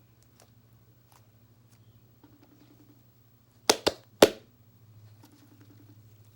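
Three sharp cracks in quick succession a little under four seconds in, over a faint steady low hum.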